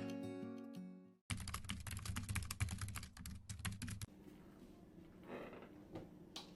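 Acoustic guitar music fading out, then about three seconds of rapid, dense clicking that starts and stops abruptly, followed by quiet room tone with one sharp click near the end.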